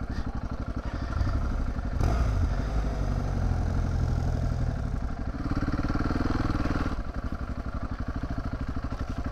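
Adventure motorcycle engine running at low revs while crawling over slippery mud, the throttle opened briefly about two seconds in and again for a second or so a little past the middle.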